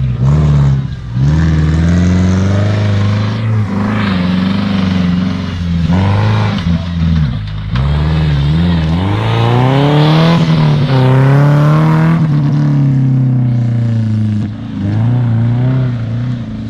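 Off-road 4x4's engine revving hard, its pitch climbing and dropping again and again as the throttle is worked while the vehicle pulls through mud. It eases off a little near the end.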